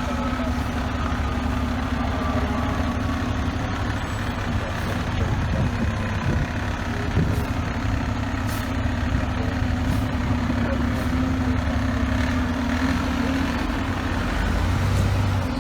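Heavy truck diesel engine running steadily at idle over city street noise, with a faint siren tone dying away in the first second or so. The engine's low hum swells briefly near the end.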